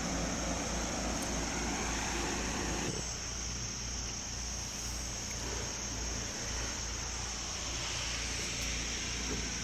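A propeller aircraft droning overhead, louder for the first three seconds and then fading, over a steady high-pitched insect drone.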